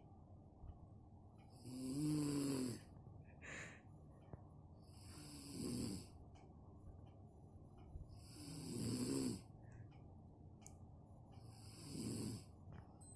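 A sleeping woman snoring loudly: four long, pitched snores about every three seconds, with a smaller one after the first. The uploader puts the heavy snoring down to exhaustion.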